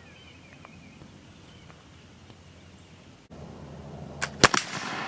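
Flintlock 20-gauge Tulle shotgun firing a single light shot load near the end: a short crack just ahead of the loud report, which then rings away over the next second.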